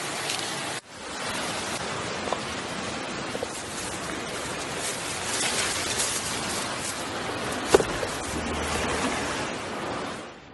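Food frying in hot oil: a steady sizzle with scattered crackles and pops. The sound breaks off for a moment about a second in, and there is one louder pop near the end.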